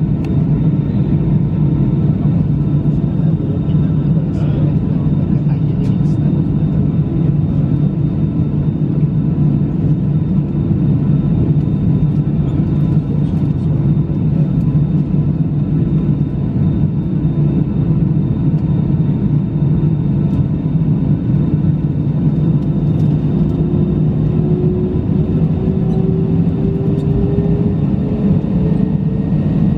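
Airbus A319 heard from inside the cabin: a steady low rumble of engines and air with thin steady whines over it. Near the end, an engine whine starts rising in pitch as the engines spool up.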